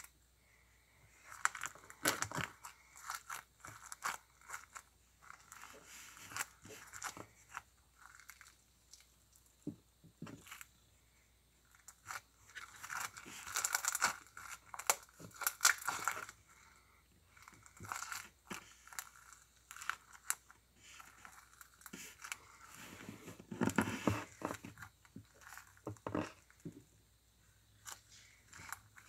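Crunchy slime being squeezed and worked by hand, giving irregular crackles and pops, with louder bursts of crunching a couple of times.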